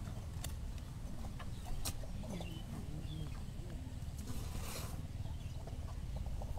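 Elephants feeding on a spread of fruit: scattered sharp crunches and snaps of food, with a rustle about four and a half seconds in, over a steady low rumble of wind on the microphone.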